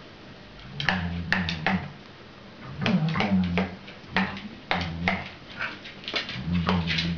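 Corgi vocalizing in about a dozen short, low growling bursts while playing with a plush toy, starting about a second in.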